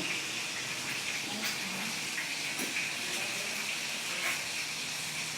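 Daing na bangus (dried milkfish) frying in hot oil: a steady sizzle with a few faint pops.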